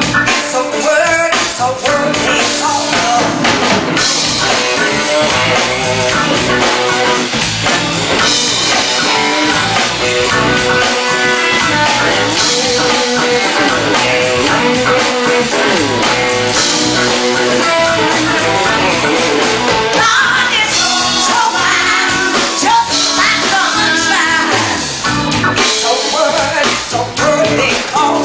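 Music: a blues-rock song with a singer, guitar and drums, with cymbal crashes about every four seconds.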